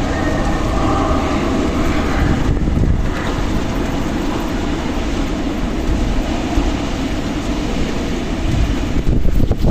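Strong desert wind blowing in gusts, a dense rushing noise over a heavy low rumble that rises and falls.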